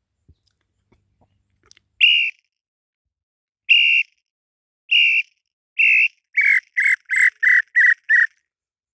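Small-billed tinamou (inhambu-chintã) song: a series of ten clear whistled notes, spaced out at first, then speeding up into a quick run of shorter, slightly lower notes, about three a second.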